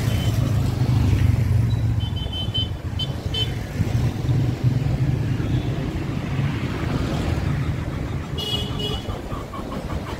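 Street traffic: vehicle engines and tyres make a steady low rumble, with short high-pitched toots twice, about two seconds in and again near the end.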